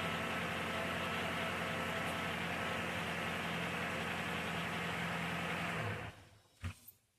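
2008 Chevrolet Malibu engine idling steadily, running clean after a misfire on cylinder 3 was repaired. The sound stops about six seconds in and is followed by a single click.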